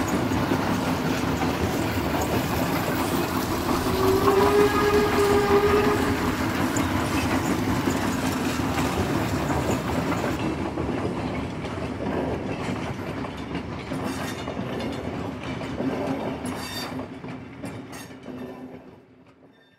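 Steam locomotive sound effect: a running steam engine's steady chuffing, with the whistle blowing for about two seconds some four seconds in. The sound fades out toward the end.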